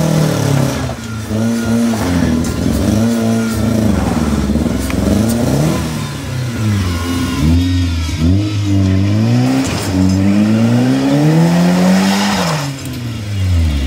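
Vauxhall Corsa's engine revving hard again and again, the pitch rising and falling in repeated surges, as it strains under load pulling on a tow strap.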